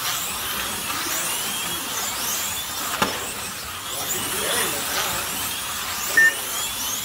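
Several slot cars racing around a large multi-lane track: the high whine of their small electric motors rises and falls over and over as they speed up and slow down through the corners. A sharp click comes about three seconds in and a short beep just after six seconds.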